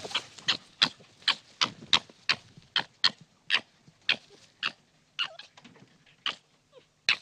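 An animal giving a rapid series of short, sharp calls, about three a second, that fade slightly toward the end.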